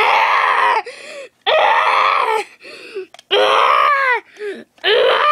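A high-pitched voice letting out four loud, drawn-out cries of about a second each, the last one sliding down in pitch.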